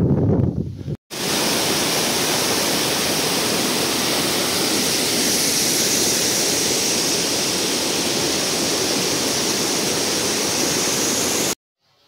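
About a second of wind buffeting the microphone, then, after a cut, a steady, hissing rush of running water that stops abruptly near the end.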